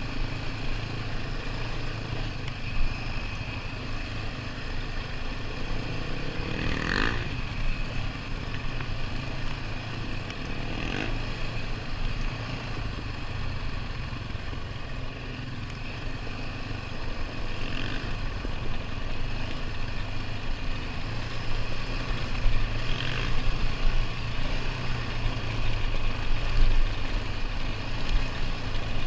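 ATV engine running steadily while riding a dirt trail, with a short rise in pitch and a few brief higher-pitched sounds along the way.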